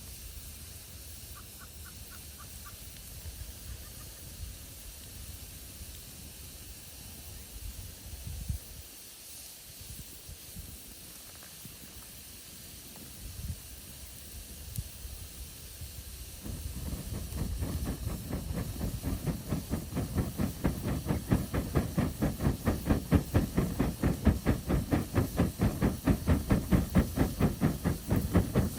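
Campfire hissing softly, then, a little past halfway, a rhythmic puffing of about four puffs a second that grows louder and stops suddenly.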